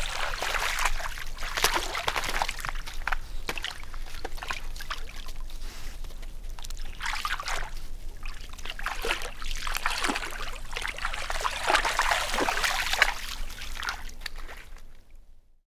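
White-tailed deer wading through a shallow creek, their legs splashing and sloshing the water in irregular bursts that die away near the end.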